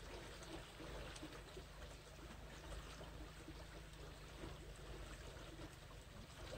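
Faint, steady rush of flowing water along a rocky bank, with a few light ticks.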